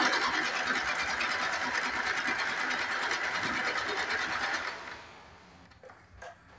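Domestic electric sewing machine stitching a straight seam at a steady fast rate, then winding down and stopping about five seconds in.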